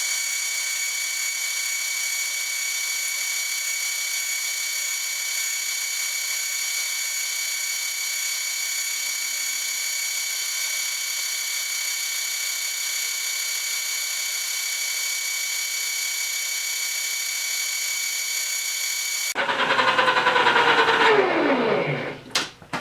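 A small high-speed motor running with a steady high-pitched whine. About 19 seconds in it cuts off and spins down, its pitch falling over a couple of seconds.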